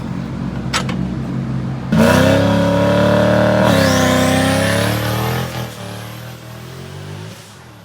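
Car engine accelerating hard: about two seconds in it suddenly gets loud and climbs in pitch, with a shift near four seconds and a high whine rising after it, then it eases off and fades.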